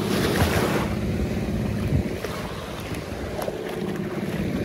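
Small waves washing and breaking onto a muddy shore, with wind buffeting the microphone, loudest in the first two seconds. A steady low hum runs underneath.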